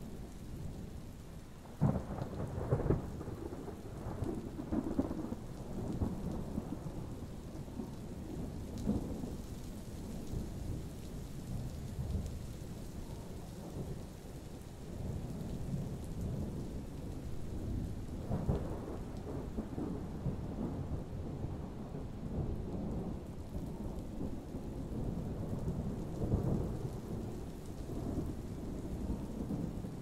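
Thunderstorm: thunder rumbling over steady rain. A sharp thunderclap about two seconds in rolls on for several seconds, and more rolls of thunder come about eighteen seconds in and near the end.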